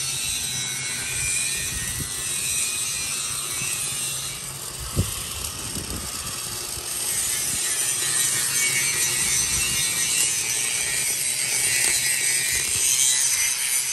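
Handheld grinder working steel on a large truck wheel rim: a continuous scraping hiss with a high whine, with one sharp knock about five seconds in.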